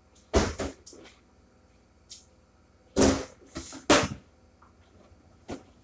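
Plastic milk jug being flipped and landing on a windowsill: a few quick knocks in the first second, then a heavier thud about 3 seconds in, two more knocks within the next second, and one short knock near the end.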